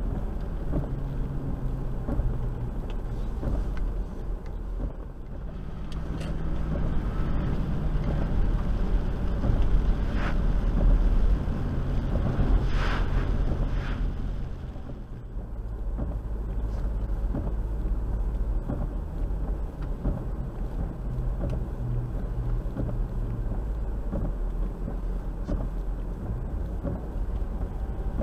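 Land Rover's engine running and its tyres on wet road, heard from inside the cabin while driving, with a steady low hum that rises and falls with the driving. It gets louder for several seconds near the middle.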